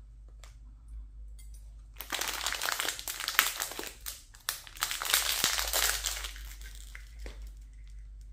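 Clear plastic packaging bag crinkling and rustling as a hand pulls a pacifier out of it, from about two seconds in to about six and a half seconds in, with a few light clicks before and after.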